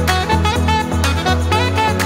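Background music with a steady beat, a bass line and a melody on top.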